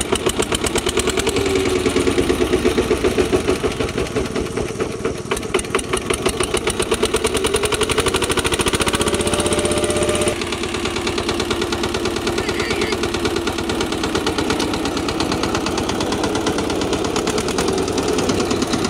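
VST Shakti 130-DI power tiller's single-cylinder diesel engine running with a steady, rhythmic firing beat, on a test run after a broken clutch pinion was replaced. It is a little quieter and smoother from about ten seconds in.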